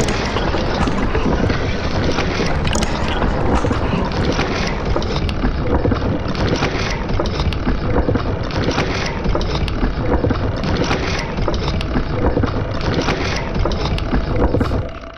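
Sound-designed steampunk machine running steadily: a dense mechanical churn with scattered metallic clicks and rattles and a faint pulse about once a second, stopping abruptly at the end.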